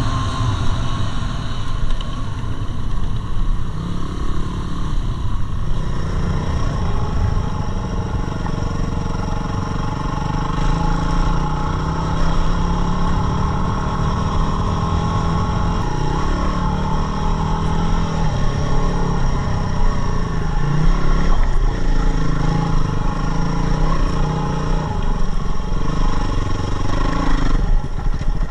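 Yamaha WR250R motorcycle's single-cylinder four-stroke engine running under way, its revs rising and falling again and again.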